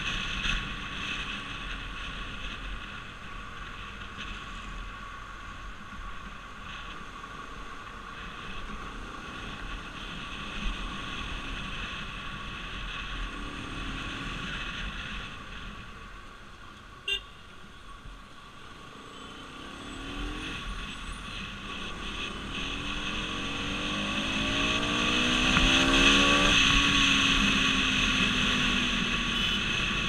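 Sport motorcycle engine running under way, with road and wind noise, as heard by an onboard camera. Over the last third its pitch rises and it grows louder as the bike accelerates, peaking a few seconds before the end.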